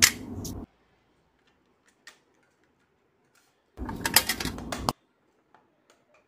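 Metal tin pencil box handled: a short clatter with a sharp click at the start as stationery is set into it, a few faint ticks, then about four seconds in a second, longer rattling clatter as the box is shut.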